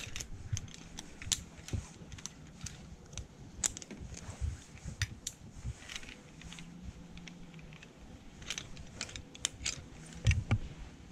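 Zipline harness hardware, metal carabiners and buckles, clicking and clinking irregularly as the gear is unclipped and taken off, over low thumps.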